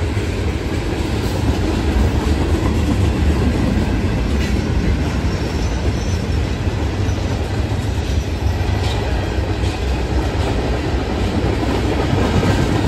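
Freight train tank cars and gondolas rolling past close by: a loud, steady rumble of steel wheels on rail, with a few sharp wheel clicks over the rail joints.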